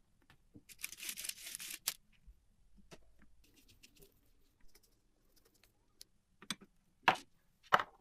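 Hands working on a typewriter during restoration: a rasping scrub for about a second, then scattered light clicks and a few sharp clacks near the end.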